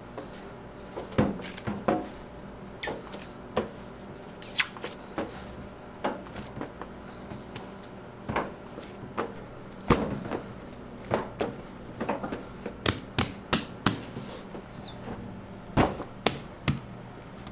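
A large mass of pizza dough is pressed, folded and turned by gloved hands on a stainless steel table, giving irregular soft thumps and slaps. A steady low hum sits underneath.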